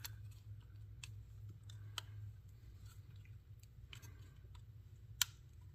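Scattered small clicks and taps of hands and a tool working on the opened plastic control head and its circuit board, with one sharper click about five seconds in.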